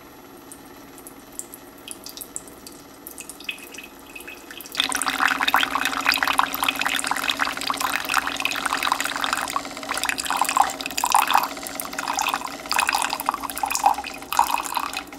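Keurig K Express single-serve coffeemaker brewing on its strong setting. A faint hum with small ticks runs first, then about five seconds in coffee starts spurting and splashing unevenly into the mug over a steady hum. The uneven spurting is normal for the strong option.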